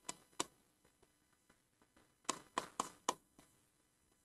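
Stylus tip tapping and clicking on the glass of an interactive touchscreen board during writing: two taps just after the start, then a quick run of four about two seconds in, with fainter ticks between.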